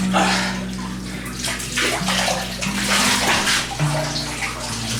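Water splashing and sloshing in a bathtub in uneven surges as a wet dog struggles to get out during her bath.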